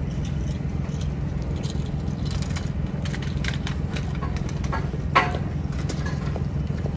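Steady low rumble of a city street, with scattered light clicks and taps and one short, sharp squeak-like sound about five seconds in.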